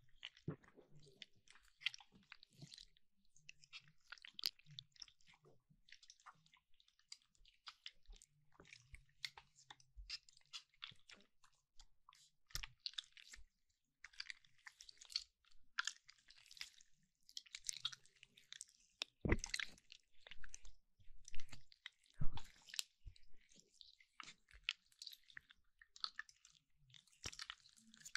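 Slime being squished and stretched by hand: an irregular stream of wet clicks, crackles and pops, with a few louder thuds about two-thirds of the way through.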